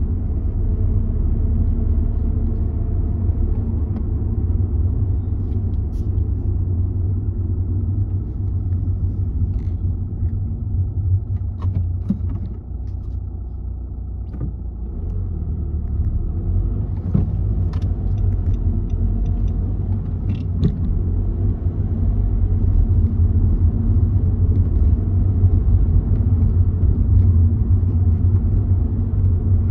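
A moving car's road and engine noise: a steady low rumble that drops for a few seconds near the middle as the car slows in queued traffic, then grows louder again toward the end as it picks up speed.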